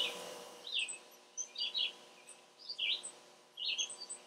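A small bird chirping: short, high chirps repeated roughly once a second, some in quick pairs.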